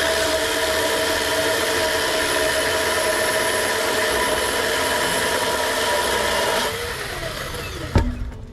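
Chainsaw running at high revs, steady, then the throttle is released about seven seconds in and the revs fall away, followed by a single thump.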